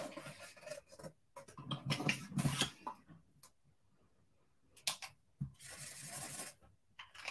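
Sheets of paper and cardstock rustling and sliding across a craft mat, with a couple of light clicks about five seconds in. Near the end, an alcohol marker scrubs back and forth on the cardstock, colouring in a patch.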